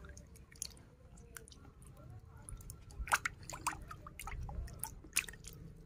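A hand scrubbing a plastic toy rhino under water in a plastic bucket: soft, irregular small splashes, drips and squelches of water, a little louder about three seconds in.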